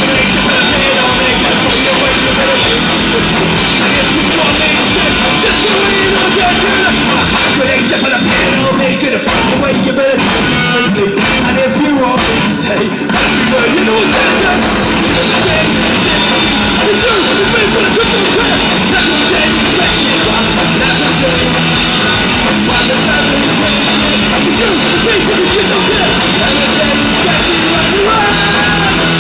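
Live rock band playing loud at full volume with a drum kit. About nine seconds in, the cymbals and high end drop out for a few seconds before the full band comes back in.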